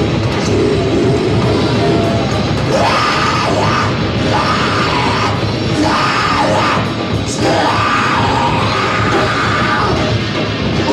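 Heavy metal band playing live and loud, with harsh yelled vocals coming in about three seconds in and running to near the end.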